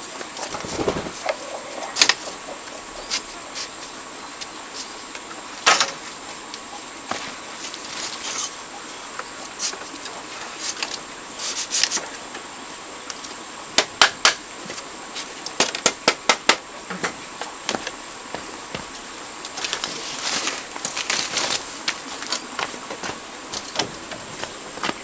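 Scattered light clicks and taps of split bamboo strips being handled as a bamboo lattice frame is assembled, with a run of quick clicks about halfway through. A steady high insect drone runs underneath.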